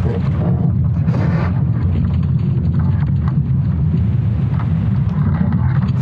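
ESA scientists' sonification of Earth's magnetic field during the Laschamp geomagnetic reversal: a loud, steady deep rumble, with brief noisy flares higher up, the strongest about a second in.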